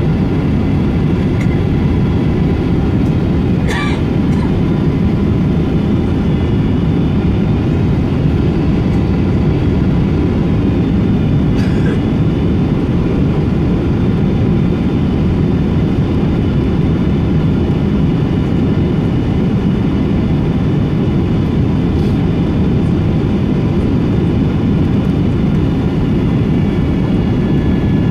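Steady cabin noise of a Boeing 777-200 airliner: a low, even rush of air and engine with faint steady whining tones above it, and a few faint clicks.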